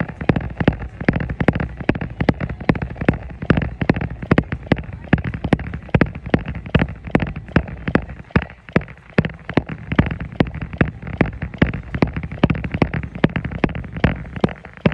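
Jogging footfalls landing on a treadmill belt in a steady rhythm, about three steps a second.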